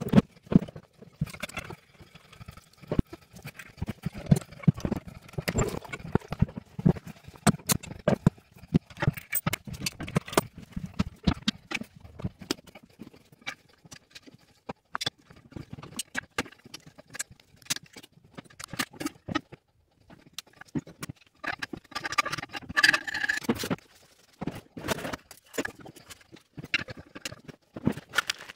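Irregular clicks, knocks and clatter of toilet parts and tools being handled during repair work, with a stretch of rustling and scraping about two-thirds of the way in.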